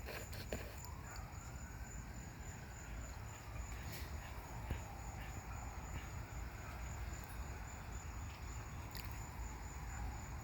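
Steady insect chorus of crickets or similar: a continuous high, finely pulsing trill, with a few faint clicks.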